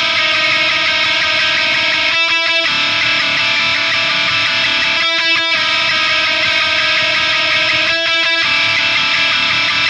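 Electric guitar playing on its own, a ringing, sustained chord figure that repeats with a short break about every three seconds.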